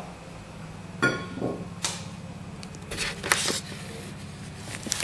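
Knocks and clicks of the camera being handled and moved, with one sharp metallic clank that rings briefly about a second in, over a steady low hum.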